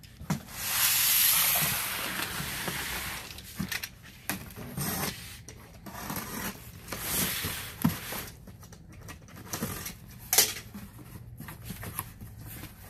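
Large cardboard box being opened and handled. It starts with a long scraping rasp about half a second in, then rustling, scraping and sharp knocks of cardboard.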